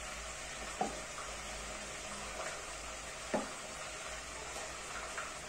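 Food sizzling steadily in a frying pan, with two short soft knocks of a utensil against cookware, one about a second in and another about three seconds in.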